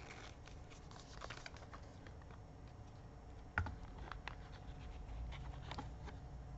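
Faint small clicks and taps of a laptop battery pack and its connector cable being handled and set into the plastic chassis of an opened laptop, with one sharper click about three and a half seconds in.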